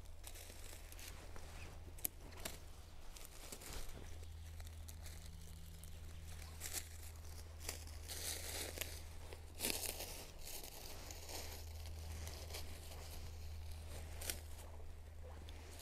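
Dry fallen leaves and twigs crackling and rustling as gloved hands push through the leaf litter and cut small mushrooms with a knife. Scattered sharp snaps come over a steady low rumble, with a busier patch of rustling about two-thirds of the way through.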